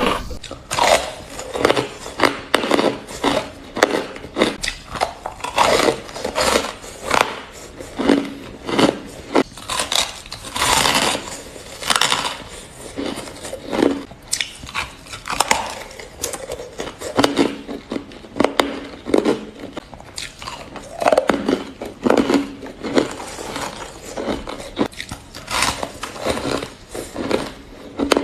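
Ice being bitten and crunched between the teeth: a long run of sharp, crackly crunches, roughly one a second, uneven in loudness.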